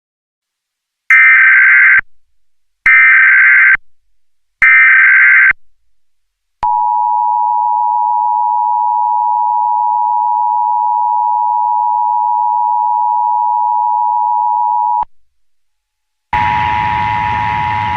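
Emergency Alert System alert: three short bursts of SAME header data tones, then the two-tone EAS attention signal (853 and 960 Hz) held steady for about eight seconds and cut off sharply. About two seconds before the end a hissy feed starts, with the two tones sounding again.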